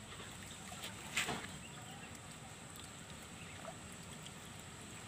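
Faint outdoor ambience beside still water, with a thin steady high tone, and one brief sharp sound about a second in.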